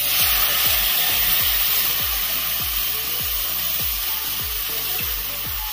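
Cold milk hitting semolina toasted in hot ghee in a kadai, setting off a loud sizzle that starts suddenly and eases a little. A steady low beat of background music plays under it.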